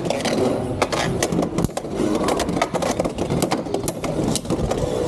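Two Beyblade X spinning tops whirring and clashing in a clear plastic stadium, with many sharp clacks at irregular intervals.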